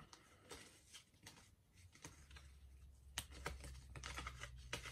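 Faint rustling and small clicks of a Match Attax card pack being opened and its cards handled, getting busier from about two seconds in.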